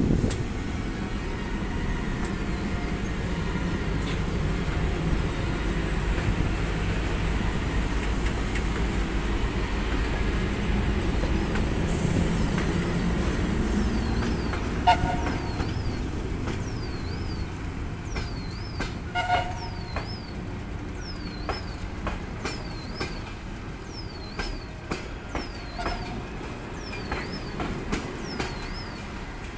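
VL10 electric locomotive pulling a passenger train away from the station and passing close by with a heavy low rumble, which eases off about halfway as the coaches follow, their wheels clicking over the rail joints. Two short toots sound about halfway through and again a few seconds later.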